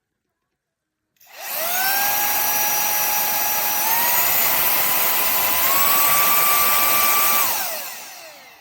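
Higoom cordless handheld vacuum cleaner's motor switched on after a second of silence and whining up to speed. Its pitch steps up twice, as it is switched through higher power settings. Then it is switched off and spins down with a falling whine near the end.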